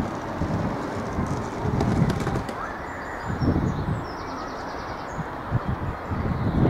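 Wind buffeting the microphone in uneven gusts, making a low rumble. A short, faint high chirping comes about halfway through.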